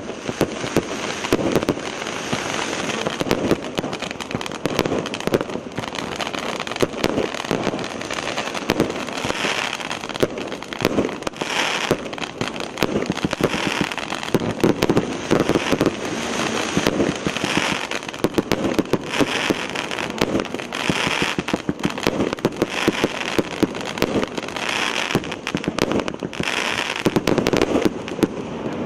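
A 20-shot, 1.1-inch consumer firework battery (cake) firing its shells one after another, a burst every second or two, each followed by dense crackling from the crackling stars.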